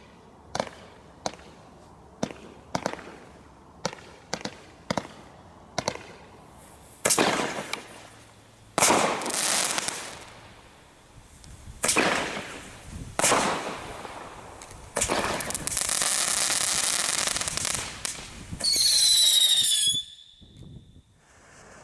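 Brightstar consumer fireworks firing: a string of sharp pops about two a second as stars are shot up, then louder bursts followed by long crackling hiss, and a shrill whistle near the end.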